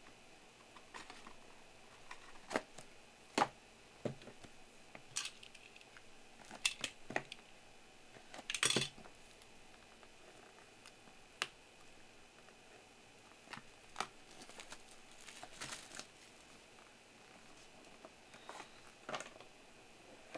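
Black cardboard trading-card boxes being handled and opened: scattered light taps, knocks and scrapes as boxes are picked up, set down and their lids lifted, with a longer, louder rustle about nine seconds in.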